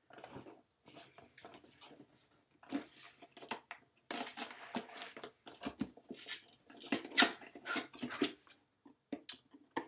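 Cardboard box being opened and its packaging handled: irregular rustles, scrapes and light knocks.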